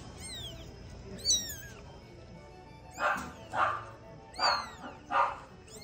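A kitten mewing: a few thin, high cries in the first second or so, then four louder mews in quick succession in the second half. Light classical music plays underneath.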